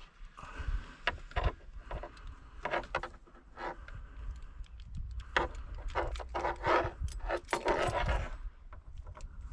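Keys jangling and small metal and plastic parts clicking and rattling while the old and new ignition key switches are handled, in irregular bursts that are busiest in the second half.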